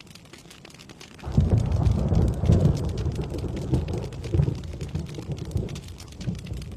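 Steady rain with many small drop ticks. About a second in, a roll of thunder breaks in: a loud low rumble that swells for a couple of seconds, then fades away near the end.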